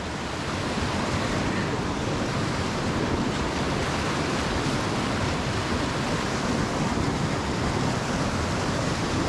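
Tirthan River rushing steadily: a constant, even roar of fast-flowing mountain water.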